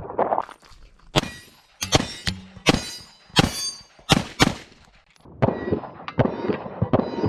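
Tanfoglio Tactical Pro pistol fired in a string of about seven shots over roughly three and a half seconds, some followed by a short metallic ring.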